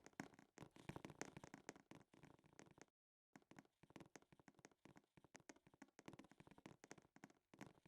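Near silence with faint, irregular clicks and crackle, cutting out to dead silence for a moment about three seconds in.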